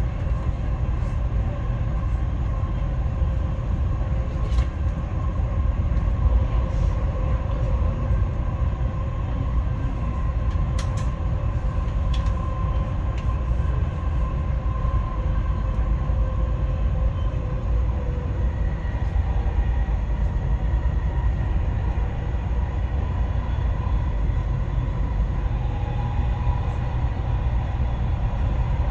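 Dubai Metro train running between stations, heard from inside the carriage: a steady rumble of wheels on track with a steady whine above it, and a few light clicks about five and eleven seconds in.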